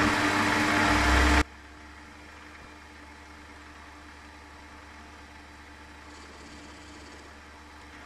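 Chester benchtop metal lathe running with an aluminium workpiece spinning in the chuck. A loud harsh noise over the motor for about the first second and a half stops abruptly, leaving the lathe running steadily with a low hum.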